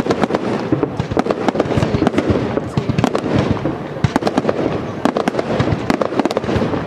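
Aerial fireworks finale: shells bursting in rapid succession, a dense run of sharp bangs and cracks several times a second over a steady background of continuous reports.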